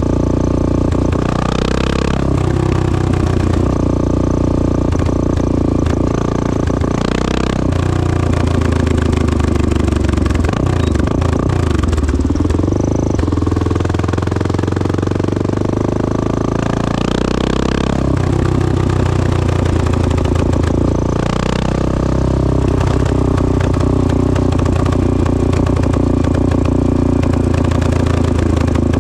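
1986 Honda XL600R single-cylinder four-stroke engine through a Devil stainless-steel exhaust. It runs loud and continuous, its revs rising and falling every few seconds, with a longer drop and build-back near the middle.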